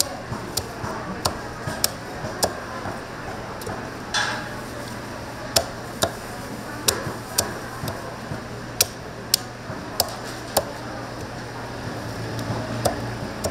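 Sharp knocks and clinks of kitchen utensils at a fried-chicken stall, irregular and roughly one a second, over a steady hum.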